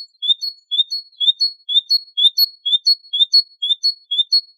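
Great tit singing its two-note song. Each phrase is a short rising note followed by a higher, level note, repeated steadily about twice a second.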